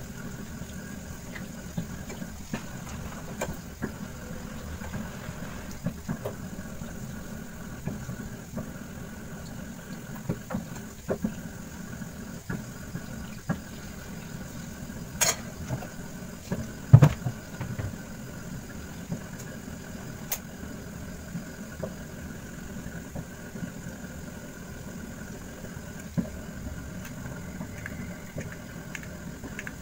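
A steady low mechanical hum, like a small motor running, with scattered light clicks and knocks and one louder knock about 17 seconds in.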